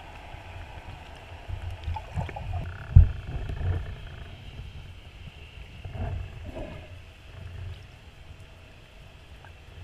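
Muffled underwater sound picked up through a GoPro Hero 3+ waterproof housing: water moving around the swimming diver, with a series of low thumps, the loudest about three seconds in.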